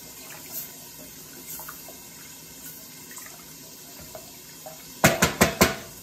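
A wooden spoon stirs stock in a stainless steel saucepan, the liquid swishing quietly with small scrapes. About five seconds in come four quick, sharp knocks as the spoon is tapped against the pot.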